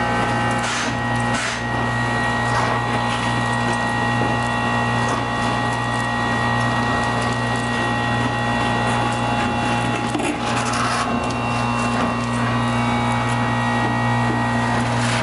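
Industrial vacuum running steadily as its 2-inch hose sucks Portland cement powder out of a drum: a constant low hum with a steady high whine, and brief louder hissing surges about a second in and again around ten seconds in as the nozzle takes in powder.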